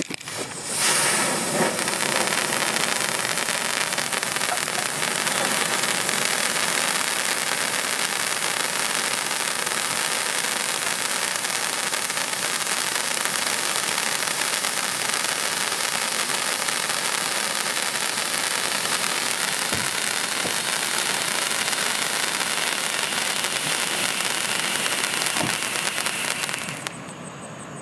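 Handheld fountain firework burning: a loud, steady hiss of spark jets that starts suddenly, swells within the first second, and dies down abruptly about a second before the end.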